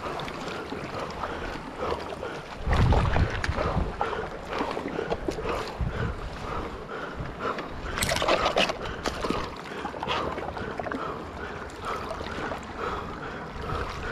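Sea water sloshing and lapping against shoreline rocks, with wind rumbling on an action-camera microphone about three seconds in and a sharper splash about eight seconds in.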